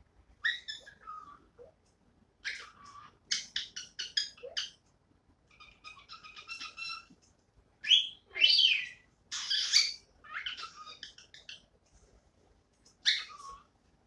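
Cockatiel singing: a string of chirps and whistled phrases with short pauses between them, some notes gliding down in pitch. The loudest calls come about eight to ten seconds in, and a last call comes near the end.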